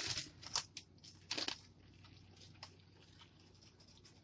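A few short, soft rustles and crackles, three or four in the first three seconds, as shredded cheese is handled by hand and scattered over a layer of spinach in a roasting pan. After that it is quiet apart from a faint low hum.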